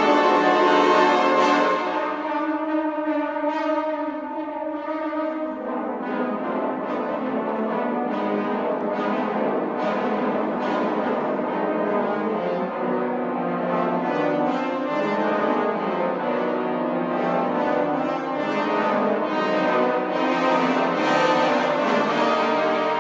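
French horn ensemble playing a sustained chorale. A loud held chord at the start drops away about two seconds in to softer playing, which builds again toward the end.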